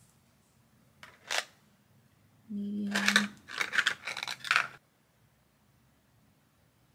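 Close handling noise of metal tweezers and a plastic cluster-lash tray: a short scrape about a second in, then a quick run of scraping and tapping with a brief low hum, cutting off abruptly just under five seconds in.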